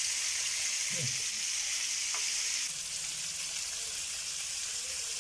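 Whole chenkalava fish shallow-frying in oil on a tawa, with a steady sizzle that eases slightly about two and a half seconds in. A slotted spatula moves among the fish, with a light tap about two seconds in.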